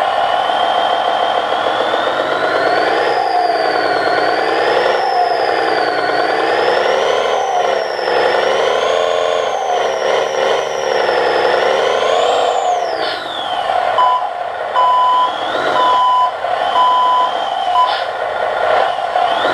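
Simulated Volvo FH16 750 truck engine played by an RC engine-sound module through a small speaker: the engine revs up and down several times, then drops back to idle about two-thirds of the way in. Near the end a reversing beeper sounds about once a second over the idle.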